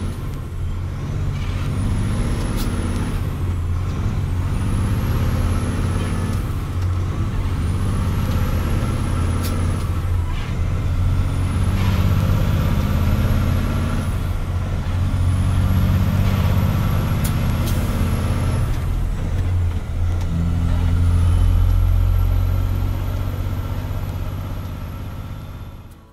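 Kenworth C509 off-highway log truck's Cummins X15 diesel, heard inside the cab, pulling hard through a run of manual gear changes. The engine note climbs and drops with each of about six shifts, and a high whistle rises and falls along with the revs. The sound fades near the end.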